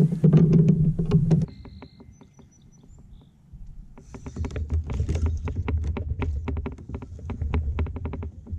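Fishing reel being cranked while fighting a hooked bass from a kayak: runs of quick clicks, with a quiet pause of a couple of seconds in between.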